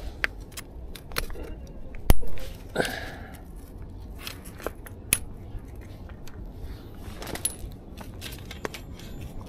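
Camping gear being handled and set down: scattered light clicks and clinks, with a sharper knock about two seconds in and another about five seconds in.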